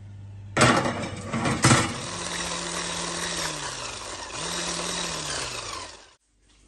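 Electric hand mixer beating cream in a glass bowl. It starts with two sharp knocks, then runs steadily, its motor pitch sagging twice, and switches off suddenly near the end.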